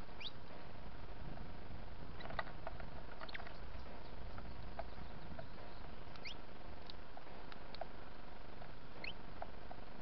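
Small songbirds at a feeder giving scattered short, high chirps and squeaks, a few sweeping quickly upward in pitch, over a steady low background rumble.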